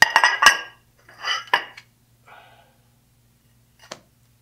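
Porcelain floor tiles clinking and clacking against each other and the hard floor as they are picked up and set down: a few sharp hard clicks, the loudest right at the start, more about a second and a half in, and one short click near the end.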